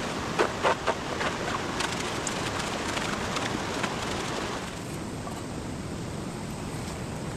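Steady rush of a mountain stream, with a quick run of sharp clicks and knocks in the first half. The water noise changes abruptly a little past halfway.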